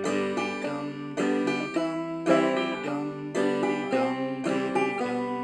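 1979 Epiphone five-string banjo played clawhammer style in the repeating dum-diddy rhythm: a finger struck down onto a string, then a brush across the strings, each figure caught with the thumb. There is a stronger struck note about once a second, with quicker notes in between.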